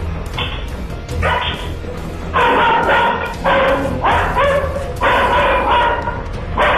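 A dog barking over and over, about two barks a second once it gets going, over background music.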